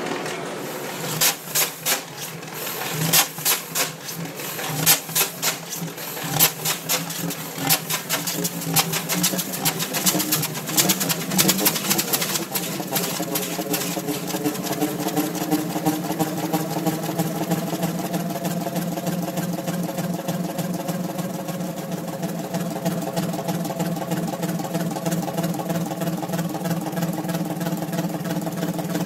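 A 450 hp 1930 Fairbanks Morse six-cylinder two-stroke diesel starting up. For about the first twelve seconds it gives a run of sharp, irregular bangs as it turns over and begins firing, then settles into a steady, even running beat.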